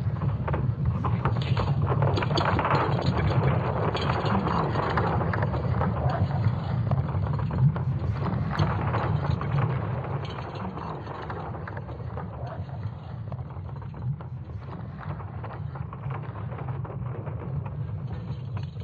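Sonification of the Earth's magnetic field, built from recordings of rocks falling and wood creaking and driven by magnetic-field data: a deep rumble thick with crackling and creaking clicks. It is louder for the first ten seconds or so, then eases off a little.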